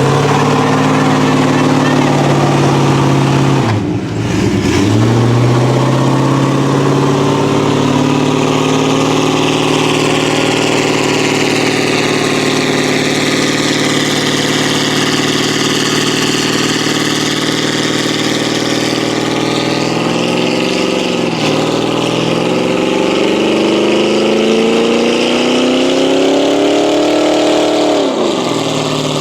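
Truck engine held at high revs during a burnout, over a steady hiss. The revs dip briefly about four seconds in and again past the twenty-second mark, then climb slowly and drop sharply near the end.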